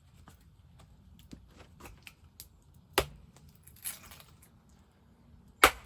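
A few sharp knocks: one about three seconds in and a louder one near the end, with small clicks and a faint low rumble between.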